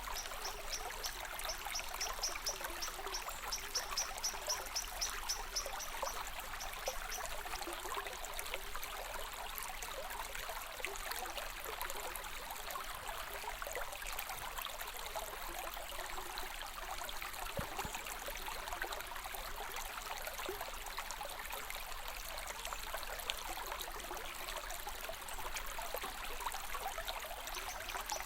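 Water trickling and babbling steadily, like a small stream. A rapid, high-pitched pulsing chirp runs over it for the first six seconds or so and comes back right at the end.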